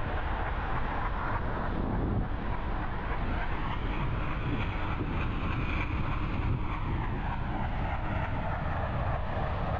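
Passenger train running along the track, heard from beside the open coach: a steady rumble of wheels on rail mixed with rushing air.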